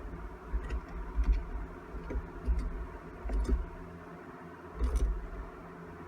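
Scattered light clicks and taps of small engine parts and hand tools being handled during a motorcycle engine teardown, with low bumps between them.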